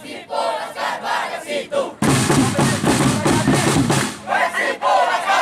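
A group of football supporters chanting and singing together, led over a megaphone, with drum beats; the chant swells loudest from about two to four seconds in.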